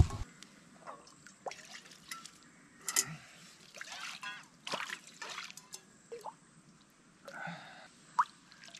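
Water dripping and trickling, with scattered small clicks and knocks and a short rising plink near the end.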